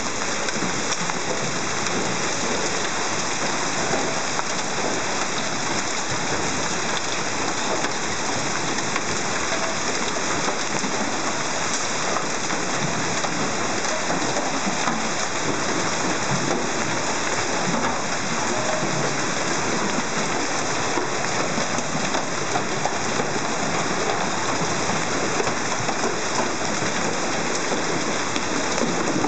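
Heavy hailstorm: a steady, dense patter of hailstones falling on the street, pavement and parked cars.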